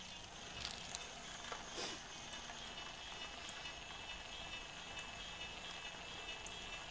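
Bicycle rolling along asphalt: steady rolling noise with light rattles and a few faint clicks in the first two seconds.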